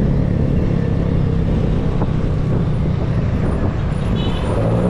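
Steady road and traffic noise heard while riding, with wind on the microphone and a low, even hum of vehicles.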